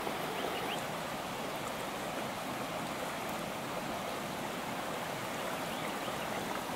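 A shallow limestone stream running steadily, an even wash of flowing water.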